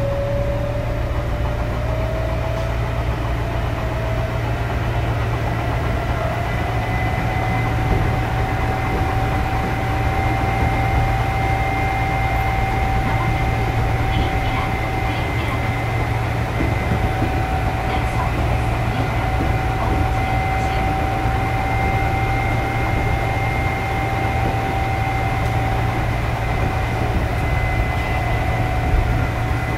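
Odakyu 8000 series chopper-control electric train running under way: a steady low rumble of wheels on track, with a whine that rises in pitch over the first several seconds as the train gathers speed and then holds steady.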